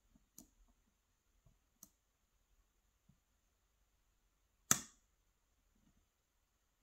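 Faint, scattered metallic clicks of a hook pick working the pins of a euro half-cylinder lock under tension, with one sharp, much louder click about two-thirds of the way in.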